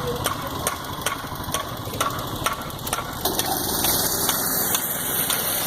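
Machinery running on a construction site, with a regular mechanical clicking about three times a second. The clicking stops about three seconds in, leaving a steadier machine noise.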